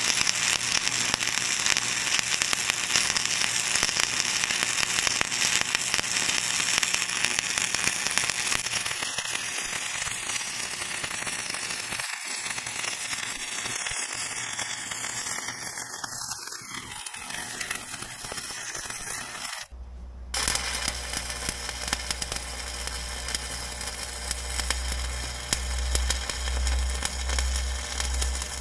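Stick-welding arc crackling and sizzling steadily as a steel grouser bar is welded onto a crawler's steel track pad. The crackle breaks off sharply about two-thirds of the way in and then resumes with a low hum underneath.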